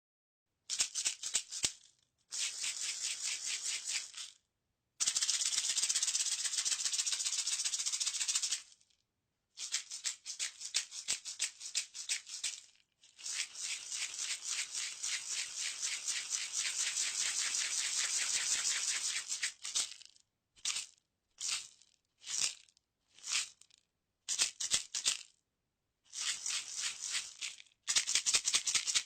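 Maracas shaken in bouts of rapid rattling, each a few seconds long with short pauses between, and a run of brief single shakes in the later part.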